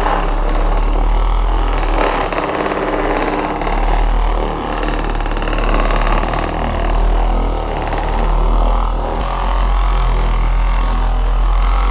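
Corded orbital polisher running steadily, its foam pad buffing dried wax off a painted panel. The motor hum swells and dips a little as the pad is pressed and moved over the surface.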